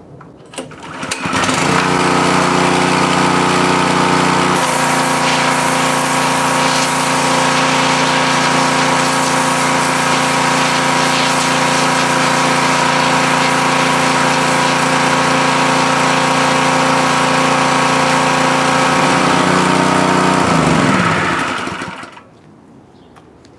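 Gas pressure washer's small engine starting about a second in and running steadily while it blasts water through a direct-stream high-pressure nozzle. Its note shifts about four seconds in. Near the end the engine shuts off and winds down to a stop.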